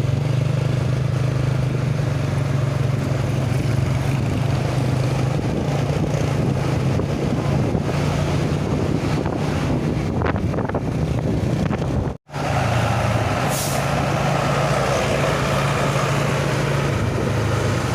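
Heavy road vehicle running steadily: a constant low engine hum under road noise, with a brief break about twelve seconds in.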